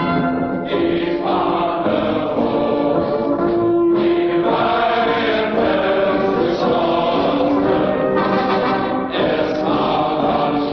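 National anthem played as music: a choir singing sustained notes over an orchestral accompaniment.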